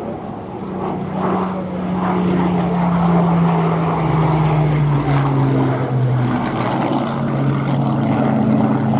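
Merlin V12-engined Second World War fighter flying past. The steady propeller-engine drone grows louder, then drops in pitch about four to six seconds in as it goes by.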